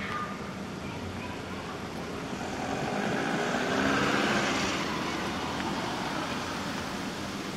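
A road vehicle driving past, growing louder to a peak about halfway through and then fading away, over a steady hum of outdoor background noise.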